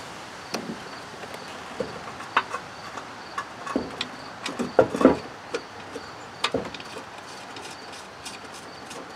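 Irregular clicks and knocks of a lawn mower engine's mounting bolt being handled and started into its hole by hand from under the mower deck, a cluster of louder knocks about five seconds in.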